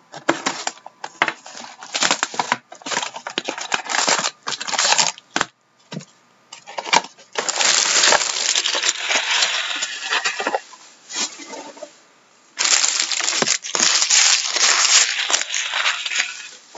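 Card-box packaging being torn open and crushed: loud crackling and crunching of plastic wrap and cardboard in three long spells, with short pauses between them.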